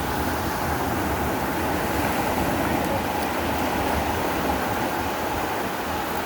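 Steady rushing noise of sea surf and wind, with a fluttering low rumble of wind buffeting the microphone.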